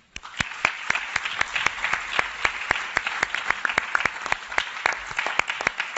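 Audience applause: many hands clapping steadily in a meeting room, starting suddenly, with some sharp, loud claps close to the microphone standing out above the rest.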